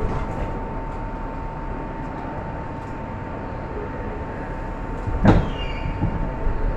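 Inside a stopped R62A subway car: a steady equipment hum with a thin, constant whine. About five seconds in, the sliding doors shut with one loud bang.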